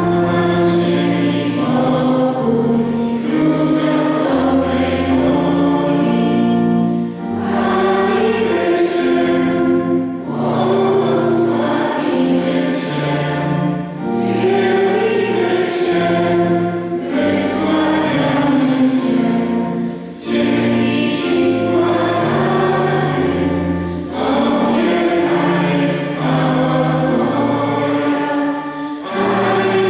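Church pipe organ playing a hymn in held chords, with voices singing along in phrases separated by short breaths.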